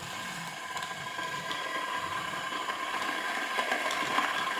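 Electric kettle heating water: a steady hiss that grows gradually louder as the water nears the boil, the heating element working again after repair.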